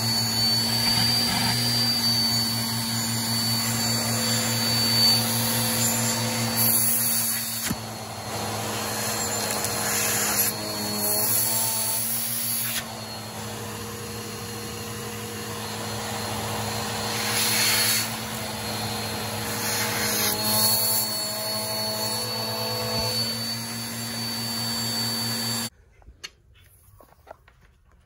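Bagless vacuum cleaner running with its hose nozzle on carpet: a steady motor hum with a high whine, its level rising and falling as it picks up debris. It cuts off suddenly near the end, leaving only a few faint clicks.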